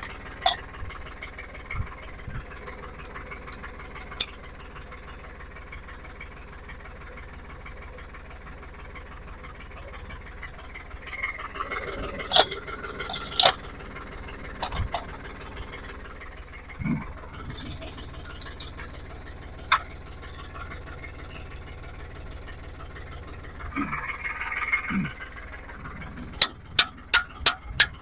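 Tractor diesel engine idling steadily, with scattered metallic clanks from the hitch. Near the end comes a quick run of sharp metal-on-metal hammer strikes, about three a second.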